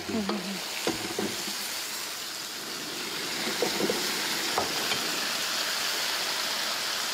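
Fried tofu in three-cup sauce sizzling steadily in a pan over low heat as the sauce reduces, with a few light clicks.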